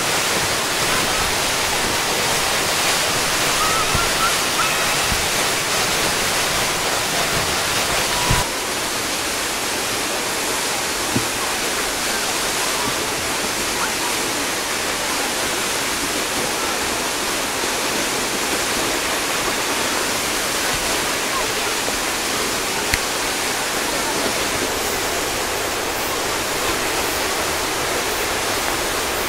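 Water discharged from the side outlets of Tsujunkyo Bridge, a stone arch aqueduct, falling in a heavy cascade onto the rocks and river below: a loud, steady rush of falling water, shifting slightly in tone about eight seconds in.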